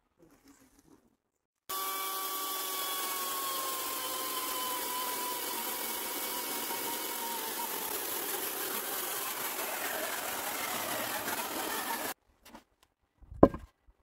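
An electric power tool running steadily for about ten seconds, starting and stopping abruptly, its whine drifting slowly lower in pitch as it works.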